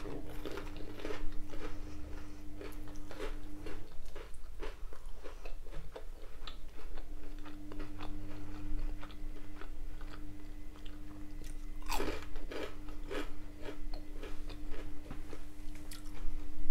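Close-up chewing of a battered cod bite, with crisp crunches of the batter all through and a louder burst of crunching about twelve seconds in.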